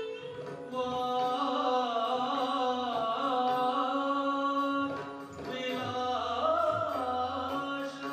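Indian classical music accompanying Odissi dance: a gliding melodic line, most likely sung, over a steady drone, with a short break in the melody about five seconds in.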